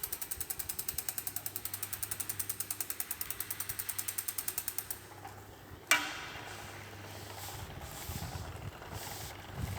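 Road bike wheel spinning with its rear freehub ticking fast and evenly, stopping about five seconds in. A second later comes one sharp metallic ping with a short ring, the kind of spoke ping the rider is complaining of on this Triban RC520 wheel. A low rumble follows near the end.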